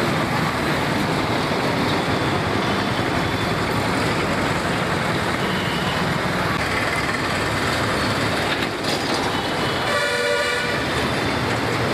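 Steady road traffic noise, with a vehicle horn honking once, briefly, about ten seconds in.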